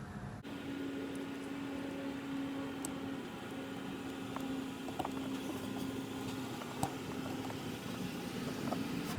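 Steady mechanical hum with a held tone, and a few light clicks of small metal brake-caliper hardware, pins and clips, being handled.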